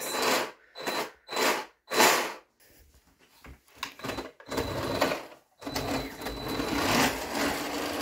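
Motor and plastic track of a 3D-printed radio-controlled snowmobile, running in several short throttle bursts, then running steadily from about halfway through as the model drives across carpet.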